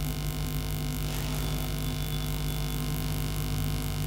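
Steady electrical mains hum, with a brief faint swish about a second in from a cloth duster wiping the whiteboard.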